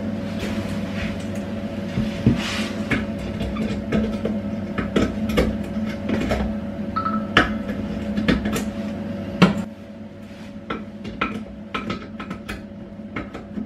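Irregular metallic clinks and knocks of a spanner working at a rust-seized coupling bolt under a close-coupled toilet cistern. A steady hum runs underneath and drops in level about two-thirds of the way through.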